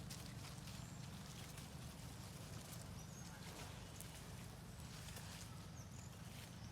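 Faint forest ambience: a steady low rumble under scattered light clicks and a few very brief high chirps.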